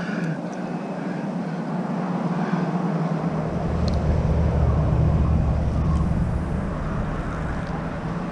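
A motor vehicle passing: a deep low sound swells in about three seconds in over steady background noise, is loudest midway, and eases off near the end.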